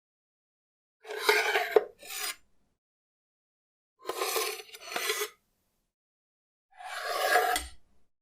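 Three separate rasping scrapes, each lasting about a second, of the kind made by filing or scraping.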